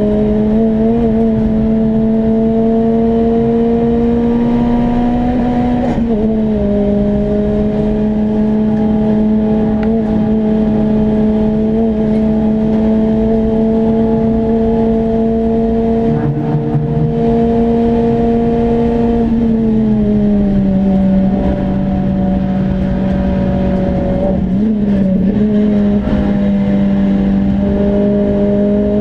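Renault Clio RS's four-cylinder engine running at high, nearly steady revs, heard inside the stripped, roll-caged cabin over tyre and road noise. Its pitch creeps slowly upward over long stretches and drops a few times, about six seconds in, around two-thirds through, and briefly near twenty-five seconds.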